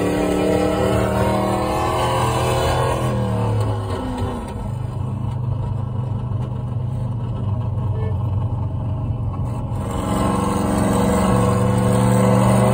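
App-generated muscle-car engine sound played through a Hyundai i20's cabin speakers, following the real engine's RPM read by an OBD2 scanner. It drops in pitch and level about three to four seconds in, stays subdued, then grows louder again from about ten seconds in as the car accelerates.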